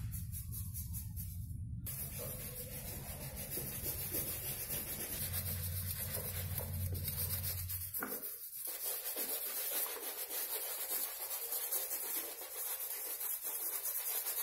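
Two bristle brushes scrubbing wet, soapy sneakers at once: a steady scratchy rubbing.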